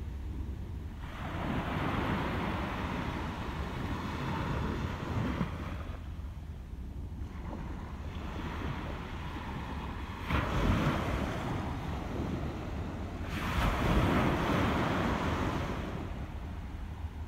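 Sea waves surging and washing over rocks in three swells: about a second in, a sharper hit around ten seconds in, and another near thirteen seconds. A steady low wind rumble on the microphone runs underneath.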